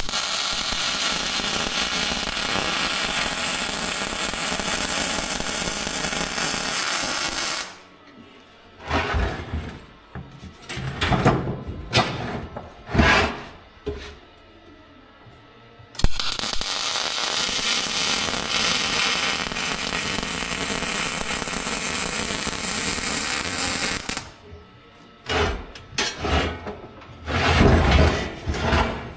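Welding arc burning in two steady, hissing runs of about eight seconds each, starting and stopping abruptly, with irregular knocks and clanks of metal being handled between them.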